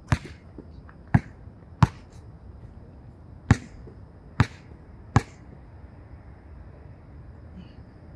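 A basketball bouncing on an outdoor hard court: six separate bounces at uneven intervals over the first five seconds or so, each ringing briefly.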